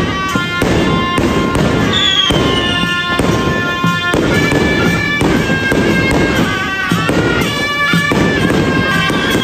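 Suona horns playing a shrill, reedy melody over a dense, continuous crackle of firecrackers.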